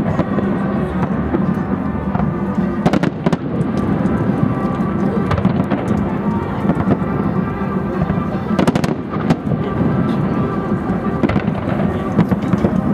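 Fireworks shells bursting in a string of sharp bangs, clustered about three seconds in and again around nine seconds, over music that plays throughout.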